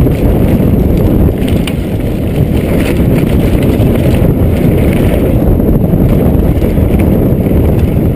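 Downhill mountain bike riding fast over a dirt trail: a loud, steady rumble of wind buffeting the chest-mounted camera's microphone mixed with tyre noise on the ground, with occasional rattles from the bike over bumps.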